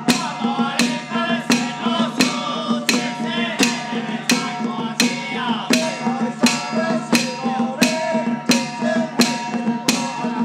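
Music with a steady percussion beat, about three strikes every two seconds, under a melody and a low drone.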